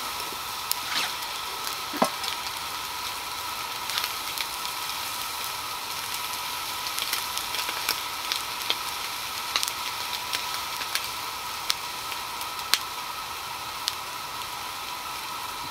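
Breakfast sausage sizzling in a frying pan over a small gas canister stove, a steady crackling hiss with scattered sharp pops and a faint steady tone underneath.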